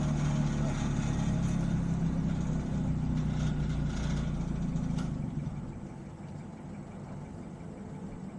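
Diesel engine of a work truck idling steadily, then cutting off about five seconds in, leaving only a faint low hum.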